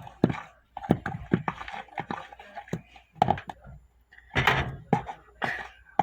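A fork knocking and scraping in a mixing bowl, cutting butter into a cookie mix: quick, irregular knocks, with a louder scraping rush about four and a half seconds in.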